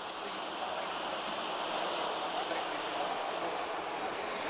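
MTO Sport autogyro's engine and propeller at a distance, a steady rushing drone that slowly grows louder as it approaches, mixed with wind and surf noise.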